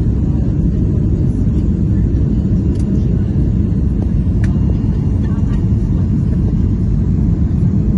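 Steady low rumble inside the cabin of a Boeing 737-800 in flight, heard from a window seat. It is the sound of the CFM56-7B engines and the airflow over the fuselage, even throughout.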